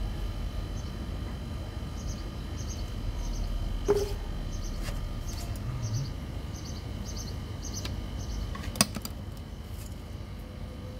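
Grey PVC pipe and fittings being handled and pushed together by hand, with two sharp plastic knocks, one about four seconds in and a louder one near nine seconds, over a steady low rumble.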